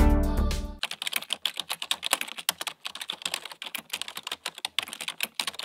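Computer keyboard typing, a quick irregular run of key clicks used as the sound effect for on-screen text typing itself out. It starts about a second in, as background music dies away, and cuts off suddenly at the end.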